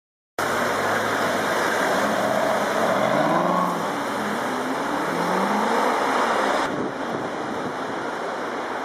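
Aston Martin V8 Vantage S's V8 engine accelerating, its pitch rising twice as it pulls away. The sound drops suddenly about two-thirds of the way through.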